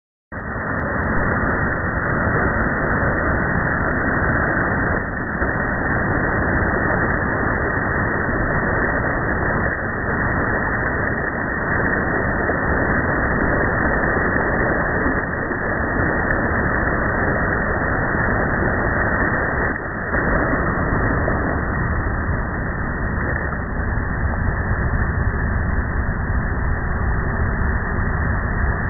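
Ocean surf washing onto a beach: a steady, dense noise of breaking waves that swells and eases slightly every few seconds.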